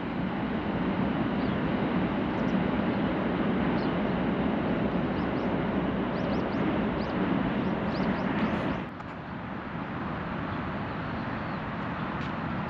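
Steady rumble of a passing vehicle, with small birds chirping over it. The rumble drops away suddenly about nine seconds in, leaving quieter background noise.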